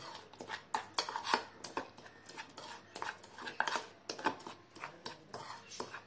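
Steel spoon stirring a dry spice and rice-flour mix in a bowl: irregular scrapes and clinks of the spoon against the bowl.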